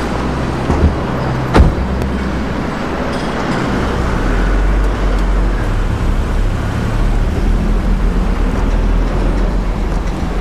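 A car door shuts with a sharp knock about a second and a half in, then a sedan's engine runs and the car drives off, a steady low rumble that grows from about four seconds in.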